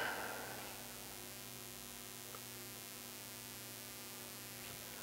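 Steady low electrical hum with faint hiss from the recording chain, with one faint click a little over two seconds in.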